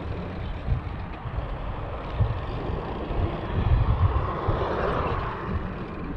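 Moving-vehicle noise with wind buffeting the microphone in an uneven low rumble, swelling into a louder rush about four seconds in.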